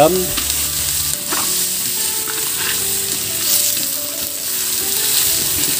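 Carrots and onions sizzling in hot oil in a steel wok while a spatula stirs and scrapes them around the pan.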